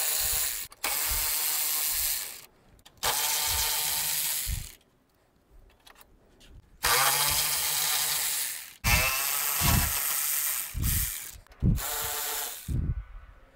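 Milwaukee cordless ratchet spinning out bracket bolts through a socket and extension. It runs in about six bursts of one to two seconds each, with a longer pause in the middle and a few low knocks near the end.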